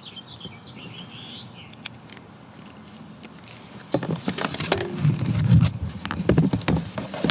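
A small bird chirps a few times at the start. From about four seconds in comes a loud, irregular run of knocks and scraping: handling noise.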